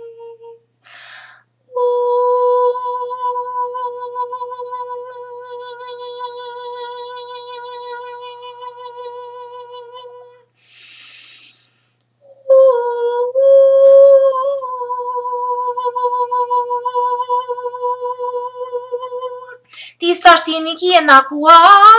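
A woman's voice toning: a long, steady held note for about eight seconds, an audible in-breath, then a second long held note. Near the end the voice slides up and down in pitch.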